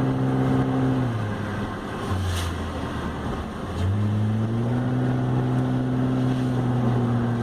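BMW car engine running while driving: its note drops about a second in, stays lower and quieter for a few seconds, then climbs back about four seconds in and holds steady.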